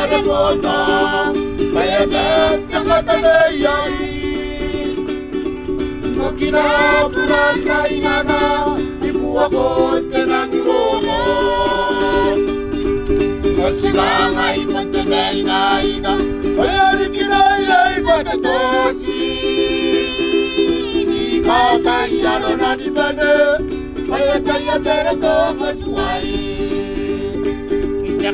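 Background music: a song with singing over plucked strings and a steady sustained chord.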